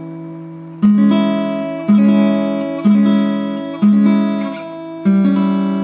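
Music: guitar chords struck about once a second, five times, each ringing out and fading before the next.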